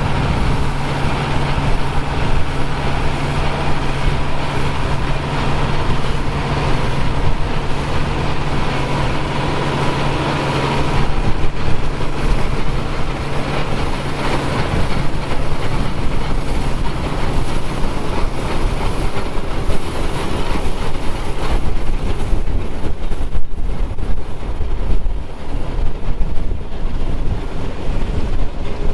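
Engines of vintage farm machinery running steadily at harvest work, with a steady low hum that drops away about two-thirds of the way through, and wind buffeting the microphone.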